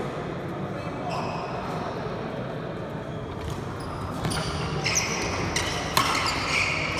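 Sports shoes squeaking in short high squeals on a wooden indoor court during a badminton rally. In the second half there are a few sharp racket strikes on the shuttlecock, the sharpest about six seconds in.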